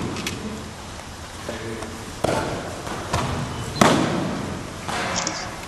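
Aikido breakfalls: bodies thudding and slapping onto the training mats as partners are thrown and pinned. The first two seconds are quiet, then four thuds follow in the second half, the loudest about four seconds in, each trailing an echo.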